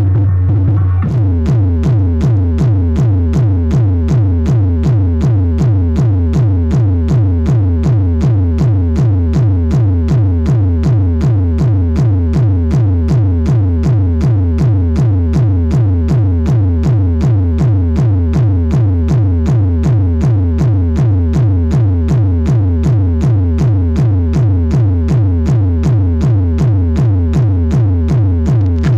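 Electronic DJ track with a heavy, deep bass beat about twice a second and a repeating falling synth figure, played loud through a four 15-inch bass speaker DJ setup for a hard-bass sound check.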